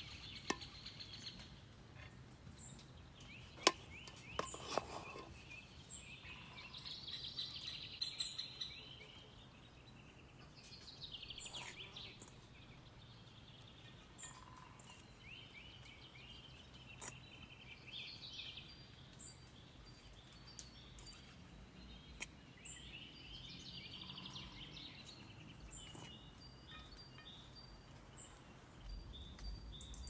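Birds singing and chirping on and off over quiet outdoor background noise, with a few sharp clicks near the start.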